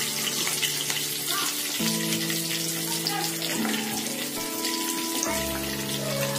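Green chillies sizzling and crackling in hot oil and ghee with mustard seeds and cumin: a tempering being fried. Background music with held chords that change about every two seconds plays alongside.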